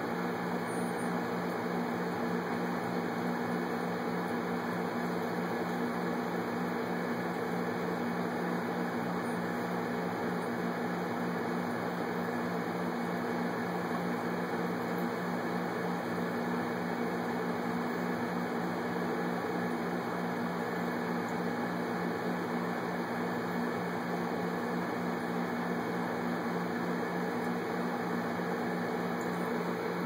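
Steady machine hum with a low drone, unchanging throughout.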